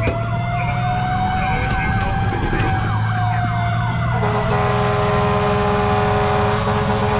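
Fire engine on an emergency run: a fast siren yelp, about three sweeps a second, over a slower wail that rises and falls. About four seconds in, the sirens give way to a long steady horn blast. The truck's engine drones low underneath.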